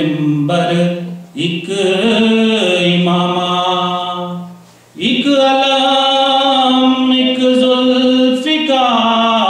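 A man's solo voice chanting an Urdu devotional kalam without accompaniment, in long drawn-out melodic notes. The line breaks off briefly about halfway through, then he holds one long note before the melody moves on near the end.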